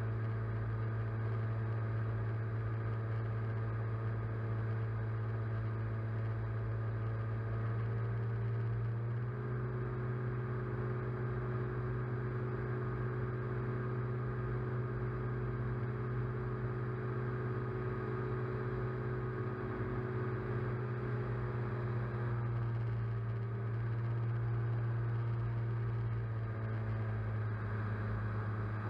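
Electric motors and propellers of a small camera aircraft humming steadily, heard from its onboard camera. The tone shifts in pitch about nine seconds in and again around twenty-three seconds.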